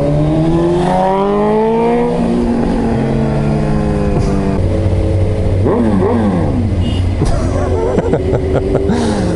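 Sport motorcycle engine accelerating through the gears, its pitch climbing over the first two seconds, levelling off, then rising and dropping again with further shifts about six seconds in and near the end.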